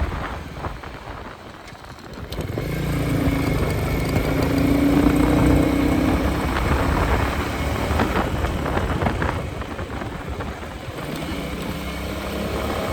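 Royal Enfield Meteor 350's single-cylinder engine and exhaust while riding. The engine drops off briefly about a second in, then pulls strongly again with rising pitch from about three seconds, and eases off again near the end.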